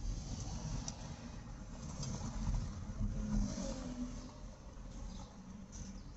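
Road traffic: the low rumble of a car's engine and tyres on the street, with a vehicle's engine note standing out for a second or so about halfway through.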